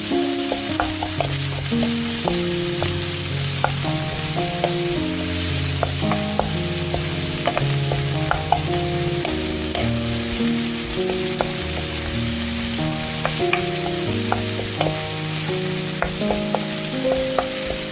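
Food sizzling in a hot frying pan while it is stirred, with scattered light clicks of a utensil against the pan. Soft keyboard background music plays throughout.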